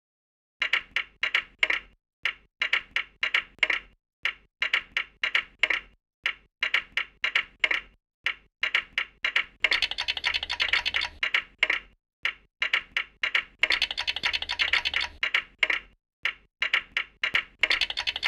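Rhythmic clicking from a synthesized sound-design track, starting about half a second in: quick runs of sharp clicks, about four or five a second, in phrases broken by short pauses roughly every two seconds. The clicks thicken into a dense clatter around ten and again around fourteen seconds in.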